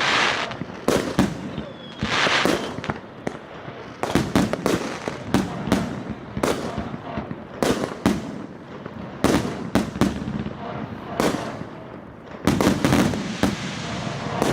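FP-B418 fireworks cake, a 100-shot battery, firing: an unbroken string of sharp bangs from shots launching and bursting, with several hissing stretches among them.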